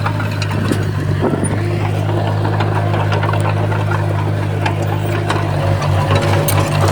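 Komatsu D20P bulldozer's diesel engine running steadily, with many scattered sharp clicks and clanks over it; the engine note pulses a little louder near the end.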